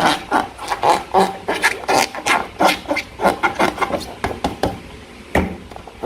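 Slime being squeezed and worked by hand: a quick run of wet clicks and squelches, several a second, thinning out after about four and a half seconds.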